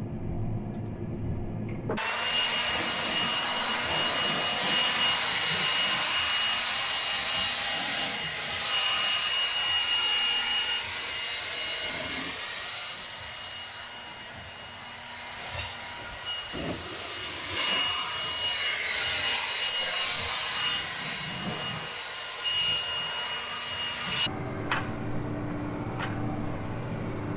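Combine harvester running hard: a loud, steady rushing hiss with a high whine on top. It cuts in suddenly about two seconds in and stops about three seconds before the end, with a lower, quieter engine hum before and after.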